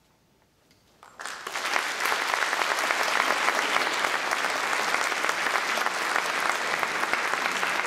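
Audience applauding, breaking out suddenly about a second in after a brief hush and then continuing steadily.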